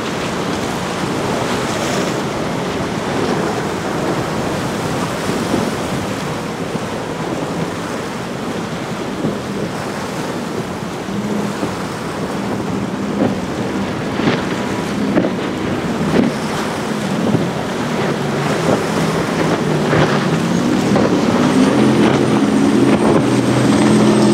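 Cigarette powerboat running at speed, its engine drone coming up out of wind noise on the microphone and wave wash about halfway and growing louder toward the end as the boat closes in. A high whine joins in near the end.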